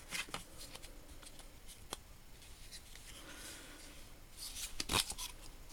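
Faint handling noise of small tools and their boxes being picked up and moved about in a toolbox drawer: light clicks and rustling, with a louder click about five seconds in.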